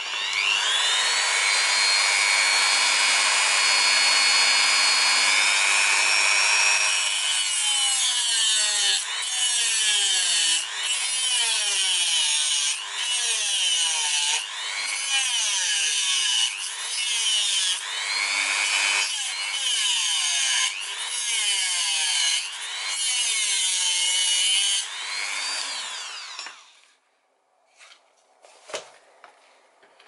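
Dremel rotary tool fitted with two stacked 409 cut-off discs, spinning up to a high whine and then cutting through a steel plate. The whine sags in pitch again and again, every second or two, as the discs bite into the metal, with a harsh grinding over it. It winds down a few seconds before the end.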